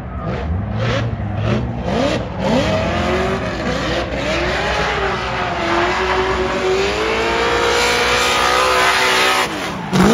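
A car drifting in tyre smoke: its engine revs up and down in quick swoops, then holds a long, slowly rising note under full throttle, over the hiss of spinning, squealing tyres that grows louder in the second half. A sharp drop and surge in engine pitch comes near the end.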